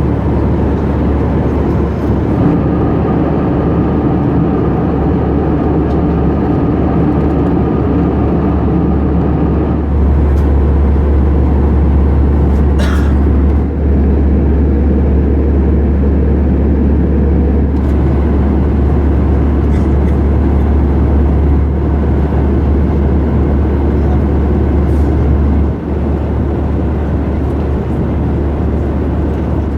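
Steady cabin noise of an Airbus A319 in cruise: the drone of the engines and airflow, dominated by a deep rumble that grows stronger about ten seconds in.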